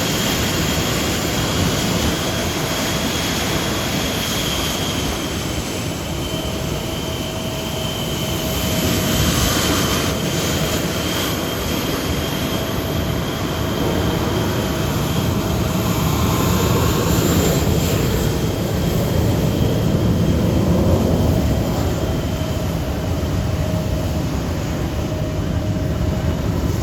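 Blue Angels F/A-18 Super Hornet jet engines running: a steady high-pitched whine over a heavy wash of engine noise that swells slightly and eases again.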